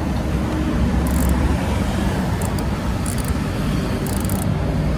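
Steady low rumble of background noise, with a few brief high hissy sounds about one, three and four seconds in.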